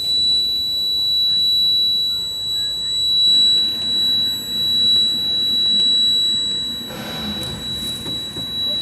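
Bobcat B900 backhoe loader's dashboard warning buzzer sounding a steady high-pitched beep after the key is switched on, with the engine not yet started.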